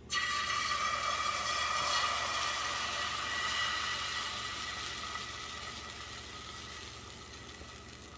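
Beaten egg poured into a hot, oiled frying pan, sizzling as it hits the pan. The hiss starts suddenly and slowly dies down over several seconds.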